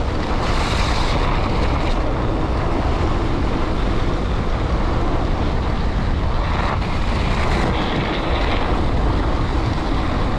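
Steady wind rush on the microphone of a moving mountain bike, mixed with the rolling noise of Schwalbe Ice Spiker Pro studded tyres on packed snow. A brighter hiss comes in briefly about half a second in and again around the seventh to eighth second.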